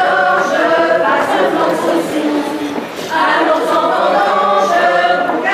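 A group of folk singers singing a song together in chorus, with long held notes and a brief break about three seconds in.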